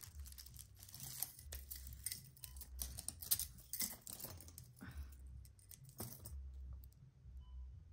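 Metal costume jewelry (chains, bangles and earrings) clinking and jingling as hands rummage through a heap of it, in quick irregular clicks that thin out over the last couple of seconds.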